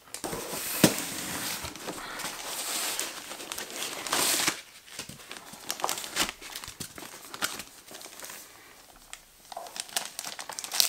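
Plastic wrapping and foam packing blocks crinkling and rustling as a laptop is unpacked from its box, with a sharp knock about a second in. The handling is busiest in the first half and thins out to scattered rustles and clicks later.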